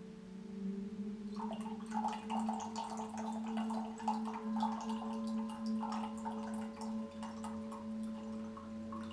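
Water pouring and gurgling in quick, irregular splashes from about a second and a half in, over a steady, sustained tone like a singing bowl drone.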